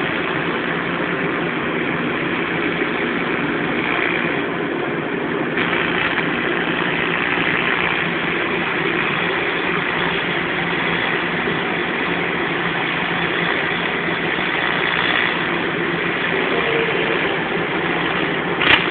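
Steady hum and hiss of TIG welding equipment running under continuous load, unchanging throughout.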